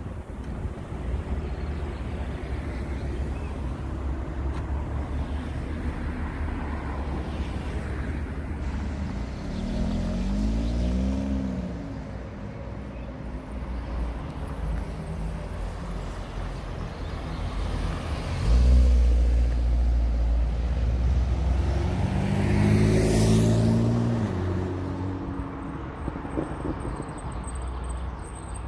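City road traffic: a constant low rumble with cars driving by. Two vehicles pass close, about ten seconds in and again a little after twenty seconds, their engine pitch bending as they go past, the second pass the loudest.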